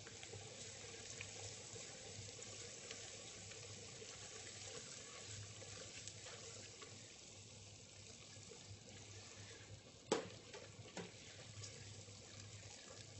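Faint sizzling of onions and celery cooking in butter in a steel pot as flour is added and stirred in with a wooden spoon, the start of a blonde roux. A sharp knock about ten seconds in, and a lighter one a second later.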